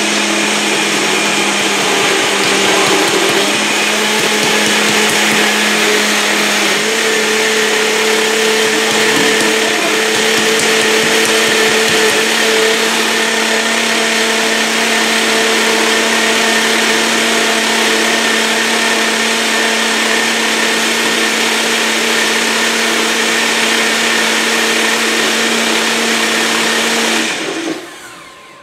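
Nutri Ninja personal blender running at full power, pureeing fruit, coconut milk, cabbage and spinach into juice: a loud, steady motor whine whose pitch rises slightly about seven seconds in. Near the end the motor is switched off and winds down over about a second.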